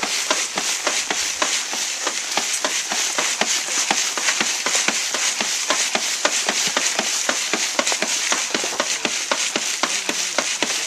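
Wooden-framed wire-mesh sifting screen being shaken back and forth, dirt, pebbles and leaf litter rattling and scraping over the mesh in a rapid, steady run of small knocks: excavated fill being screened for artifacts.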